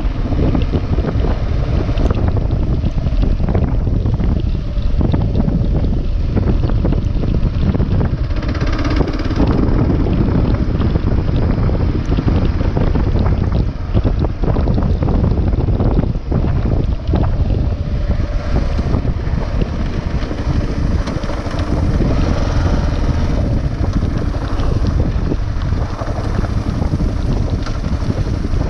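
Wind buffeting the microphone over the Kawasaki KLR 650's single-cylinder engine running steadily under way.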